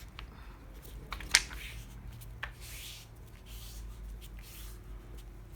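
Sheets of printed paper being handled and shuffled, soft rustles broken by a few light taps, the sharpest about a second and a half in.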